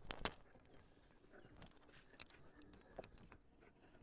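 Near silence, with a few faint short taps; the loudest comes right at the start.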